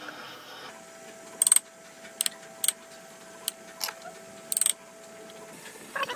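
Woodworking tool noise: a handful of short, sharp scraping strokes at uneven intervals, over a faint steady hum that stops shortly before the end.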